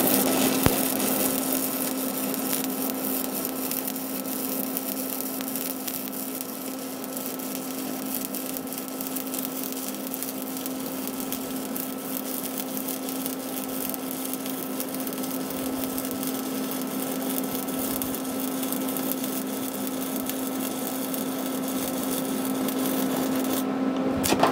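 Stick-welding arc burning a 7018 electrode at 120 amps DC: a steady crackling sizzle with a steady hum underneath. The arc breaks off about a second before the end.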